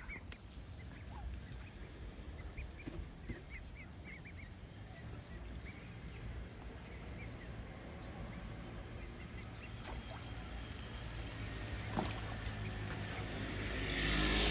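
Eastern spot-billed duck ducklings peeping in short, high calls, many in the first few seconds and fewer later, over a steady low rumble that grows louder near the end.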